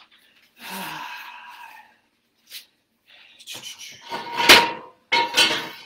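A sheet of paper rustling as it is handled close to the microphone, with a sharp, loud rustle or bump about four and a half seconds in.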